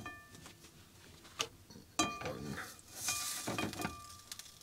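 A metal utensil knocking and clinking against a pan and a ceramic plate while cinnamon rolls are lifted out: a handful of light knocks, the loudest about two seconds in, some leaving a short ring.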